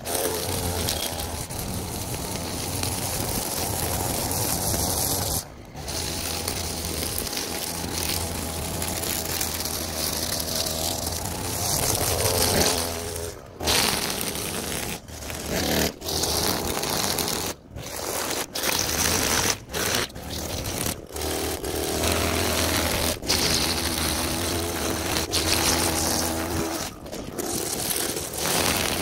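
String trimmer running and cutting grass along a curb edge, heard in short stretches that cut off abruptly several times, with the pitch changing from one stretch to the next.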